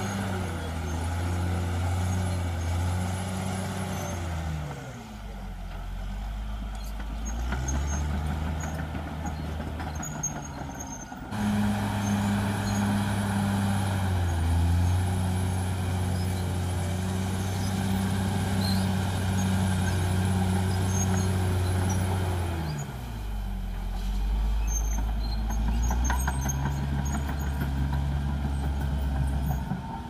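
Caterpillar D6R XL bulldozer's diesel engine working under load as the blade pushes soil. Its engine speed drops and picks up again twice, with a thin high whine that follows the engine speed.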